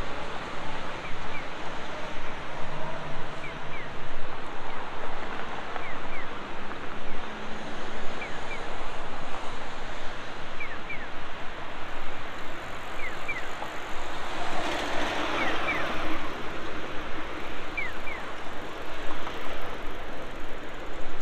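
City street traffic: a steady rush of passing cars, with one louder vehicle going by about two-thirds of the way through. Short high chirps in pairs recur about every two seconds over it.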